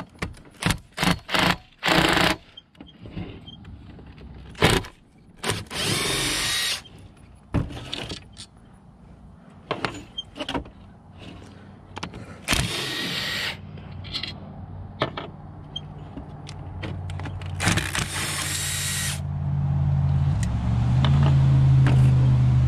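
Cordless impact driver running in short bursts of about a second, four times, backing long screws out of a Denso alternator's housing, with clinks of metal parts between the runs. A low steady rumble builds up over the last few seconds.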